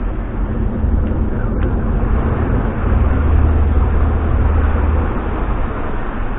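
Low, steady rumble of a large motor yacht's engines close by as it manoeuvres through a turn, swelling for a couple of seconds in the middle.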